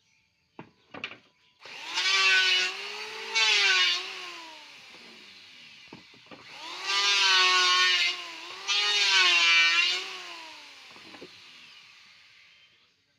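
Electric hand planer shaving wood, run twice, each run with two loud cutting strokes over the motor's whine, the motor winding down after each run. A few clicks from handling the tool come before and between the runs.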